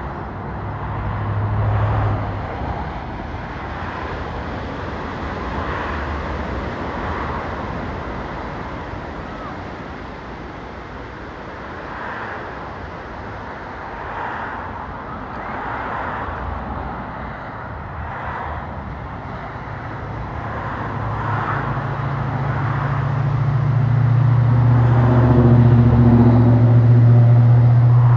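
Steady outdoor roar of road traffic. Over the last several seconds a motor vehicle's low engine hum builds up close and becomes the loudest sound.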